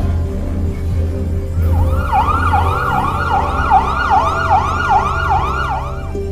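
Emergency vehicle siren in a fast yelp, its pitch sweeping up and down about twice a second. It comes in a little under two seconds in and cuts off just before the end, over a low steady drone.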